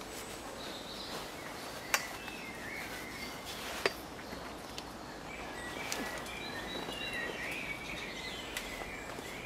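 Two sharp clicks about two and four seconds in, with a few fainter ones, from the aluminium tube frame and fittings of a portaledge being handled as its fabric bed is stretched on. Behind them a steady outdoor hiss, with small birds chirping faintly in the second half.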